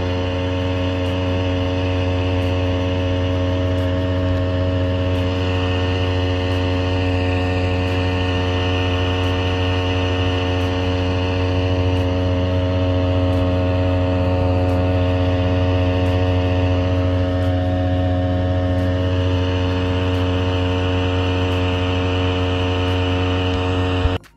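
Sican 52cc two-stroke outboard motor running at a steady speed under load as it drives a kayak across the water: a loud, even drone that holds its pitch throughout, cutting off abruptly at the very end.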